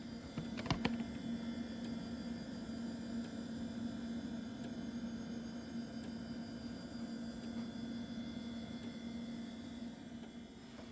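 3.5-inch high-density floppy drive of an IBM PS/2 Model 57 running while it formats and writes a 1.44 MB disk: a steady hum with a few clicks about a second in, easing off near the end.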